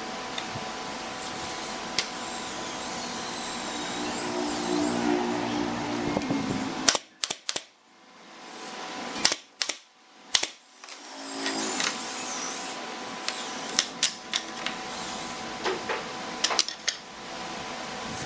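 Pneumatic brad nailer firing brads into pine boards: a cluster of sharp snaps in the middle and another near the end, over a steady background hum.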